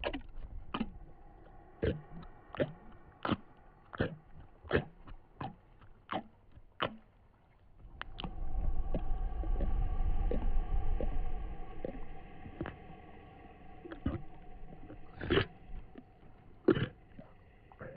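Eerie ambient sound-design soundscape: irregular sharp knocks, about one or two a second. About eight seconds in, a low rumble swells up and fades, under a sustained droning tone that carries on, with a few more knocks near the end.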